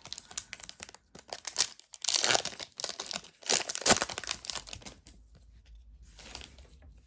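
Foil wrapper of a Yu-Gi-Oh booster pack being torn open and crinkled. The crackling rustles come in bursts, loudest around two and four seconds in, then die down to a short rustle near the end.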